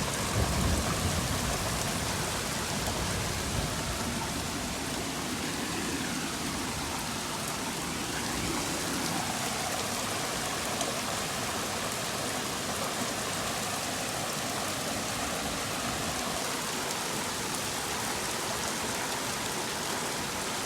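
Heavy rain falling steadily, an even hiss of drops on surfaces, with a low rumble fading out over the first few seconds.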